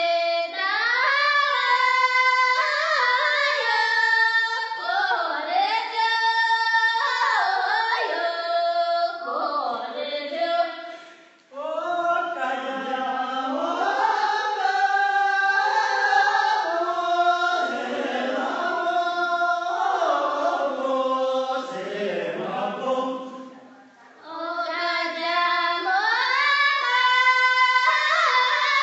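Voices singing a Tibetan bro, a circle-dance song, in long, high, ornamented phrases with no beat, broken by two short pauses between verses.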